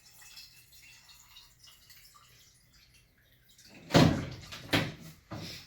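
Faint room hum. Then, near the end, three loud clunks and rattles in quick succession as the insulated drink tumbler of ice and water is handled.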